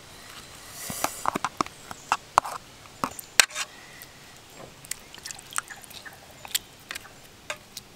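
A spatula stirring raw chicken pieces with water and chili seasoning paste in a pot: wet sloshing with irregular small clicks and taps.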